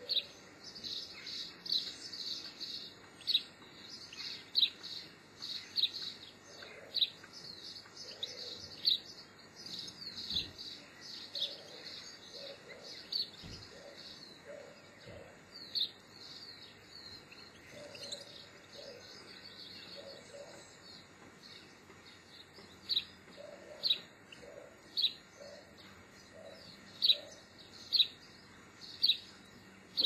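Small garden songbirds calling with short, high, sharp chirps, coming thick and fast at first, thinning out, then single chirps about once a second near the end.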